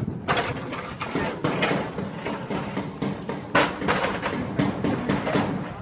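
Irregular knocks and clattering.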